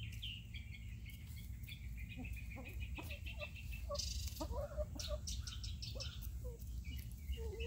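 Backyard hens clucking softly, with a run of high chirps from a bird in the first few seconds. About four seconds in comes a short scratchy rustle, dirt stirred up by a White Leghorn hen dust-bathing.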